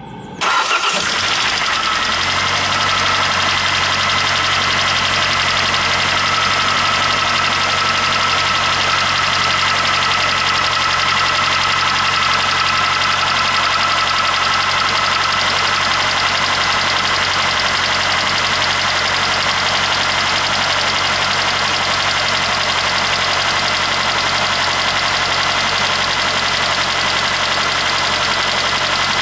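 Hyundai i40's 2.0 G4NA four-cylinder petrol engine starting within the first second and idling steadily from cold. The knock it makes during warm-up goes away once the engine is hot.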